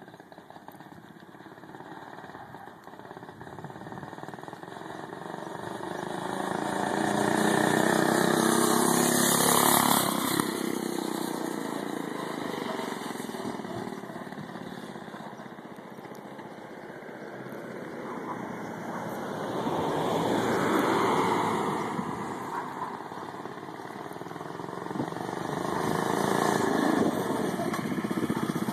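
Small single-cylinder four-stroke engine, a 6 hp Honda clone, running on a motorized tricycle as it rides past. It grows louder to a peak about eight to ten seconds in, its pitch falls as it goes by, then it fades and swells twice more as the trike comes back around.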